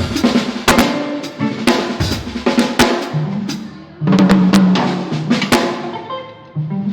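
Drum kit played at a band sound check, with kick drum, snare and cymbal strikes. Held low notes join from about three seconds in.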